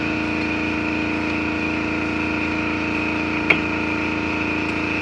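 Air compressor running with a steady, even hum. A single sharp click about three and a half seconds in.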